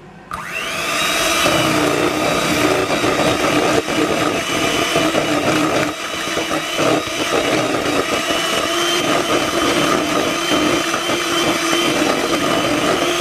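Electric hand mixer starting up with a short rising whine, then running steadily as its beaters whisk cake batter in a plastic bowl.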